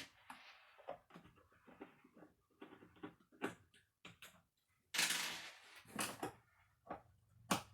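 Light clicks and taps of a screwdriver and small Phillips machine screws being taken out of a control panel top, with a longer rustling scrape about five seconds in.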